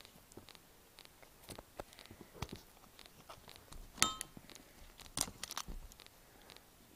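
Pieces of a smashed Nokia flip phone being handled: scattered plastic clicks and small rattles, with one sharp clink about four seconds in and a brief cluster of clatter just after. A faint tick repeats about twice a second underneath.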